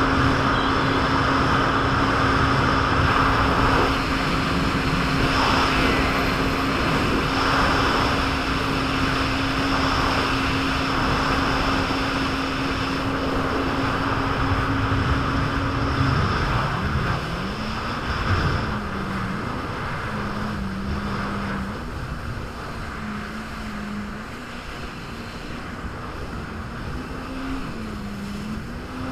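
Jet ski engine running at a steady high throttle over rushing wind and water. About halfway through, the engine note drops, then rises and falls unevenly as the throttle is eased and varied.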